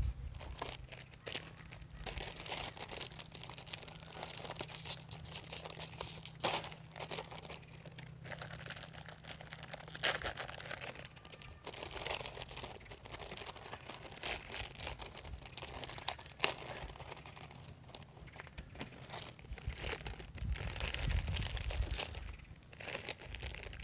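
Plastic food packaging crinkling and crackling as it is handled and torn open, in irregular bursts with a few sharper crackles.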